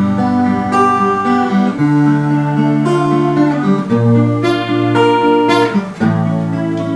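Acoustic guitar strumming chords as an instrumental intro, the bass note changing about every two seconds.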